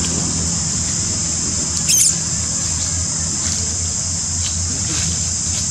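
Steady high insect drone, like cicadas or crickets, over a low steady hum, with one brief high squeak about two seconds in.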